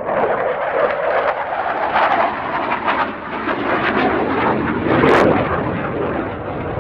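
Saab JAS-39C Gripen fighter jet flying past, its Volvo RM12 afterburning turbofan making loud rushing jet noise with a ragged crackle, with a short sharp hiss about five seconds in.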